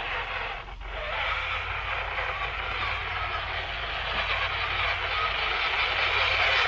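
Electric motor and gearbox of a Tamiya High-Lift F-350 RC scale crawler whining as it drives over a rocky trail, with a short dip just under a second in, growing louder through the second half as it closes in.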